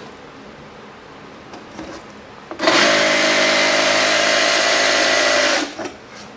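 Jigsaw cutting through a plywood panel: the saw starts sharply a little before the middle, runs steadily for about three seconds, then stops.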